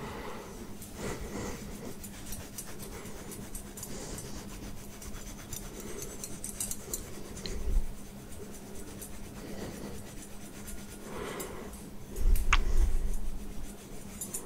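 Metal tines of a wire scalp massager rubbing and scratching over closely buzzed hair, in soft repeated swishes. A dull low bump comes about halfway, and a louder low rumble comes near the end.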